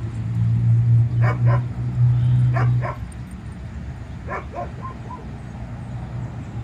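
A dog barking in quick pairs of short barks, three pairs over about three seconds, over a low steady hum that stops about three seconds in.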